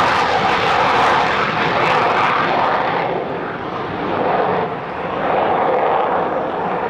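Jet noise from the twin J79 turbojets of an F-4F Phantom II climbing away at full power with afterburner lit. The noise loses its highest hiss about halfway through and fades slightly as the jet recedes.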